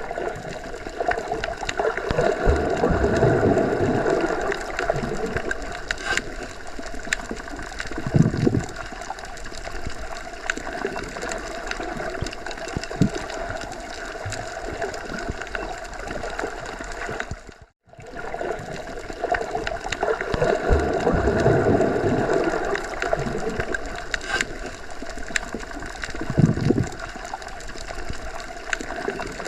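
Underwater ambience: a muffled, steady water rumble and bubbling with scattered faint clicks, swelling every so often. It cuts out for a moment about two-thirds of the way through, then starts again.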